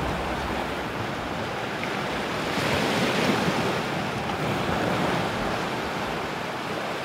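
Sea surf washing on a shore, rising and falling in slow swells.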